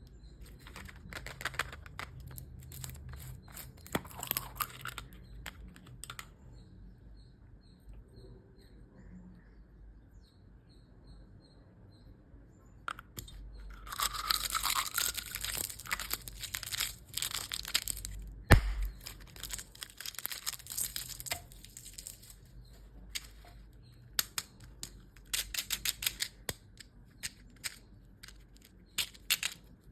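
Plastic candy and toy wrappers crinkling and tearing as they are opened by hand, in bursts with a quieter pause in between. One sharp click comes a little past the middle.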